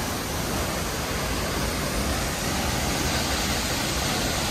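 Steady rushing of a waterfall plunging into a pool.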